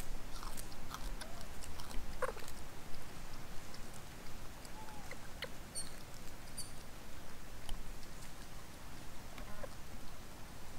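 Outdoor background with scattered light clicks and a few brief, high squeaks or chirps from animals, two of them close together a little past halfway.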